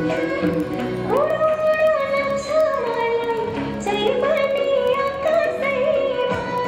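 Recorded song for a dance: a woman's singing voice holds long notes that glide between pitches, entering about a second in, over a steady percussion beat.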